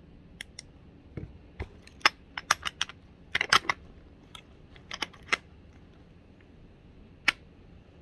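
Sharp metal clicks and clacks of a quick-release prosthetic wrist connector as a terminal-device adapter is pushed into its toothed socket and locks. The clicks come in a quick cluster about two to four seconds in, a few more around five seconds, and a single one near the end.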